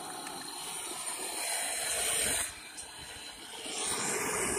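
MAPP gas torch flame hissing steadily as it heats an aluminum refrigerator evaporator for brazing with aluminum rod and flux; the hiss dips briefly about two and a half seconds in and swells again near the end.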